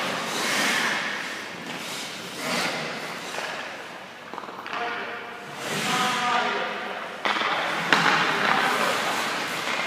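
Hockey goalie's skate blades scraping and cutting the ice in repeated bursts as he pushes and shuffles in his stance, with a couple of sharp thuds near the end.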